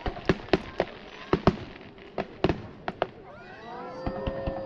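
Aerial fireworks going off in a fast string of sharp bangs and cracks, about a dozen in the first three seconds. Near the end several wavering whistle-like tones glide up and down over one another.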